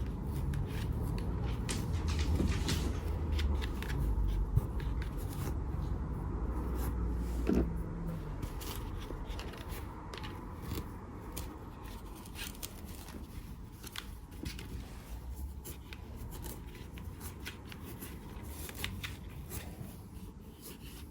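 Rustling, light clicks and scrapes of things being handled, over a low hum that falls in pitch and stops about eight seconds in.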